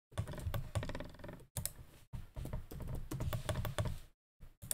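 Computer keyboard typing: a quick run of key presses, stopping about four seconds in, then a few more near the end. This is the kind of typing done to enter a distance value into the modelling software.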